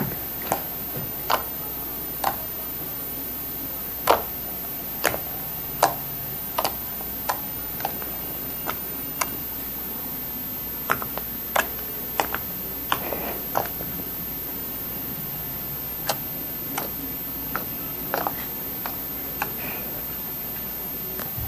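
Homemade PVA-glue slime being pressed and squished by hand against a stone countertop, giving sharp, irregular clicks and pops, roughly one or two a second, over a steady background hiss.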